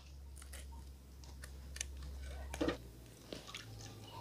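Faint crinkles and small clicks of a plastic shampoo sachet being squeezed out over a metal bucket of water, with a faint steady low hum underneath.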